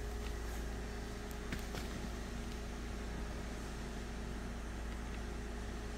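A steady, low machine hum with several held tones that does not change.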